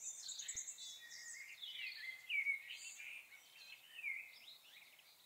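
Faint birdsong: a continuous run of short, varied chirping and warbling phrases.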